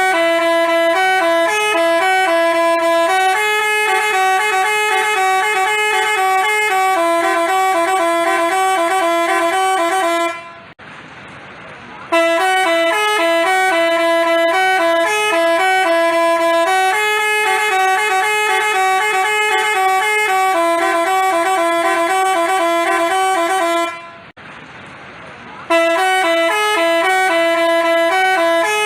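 Basuri telolet bus horn playing a fast multi-note melody, in three long phrases with two short pauses between them.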